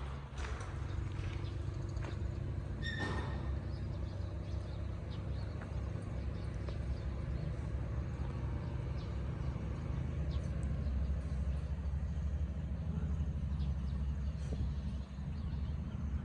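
Heavy machine's diesel engine running steadily with a low, even drone, with a short sharp click about three seconds in.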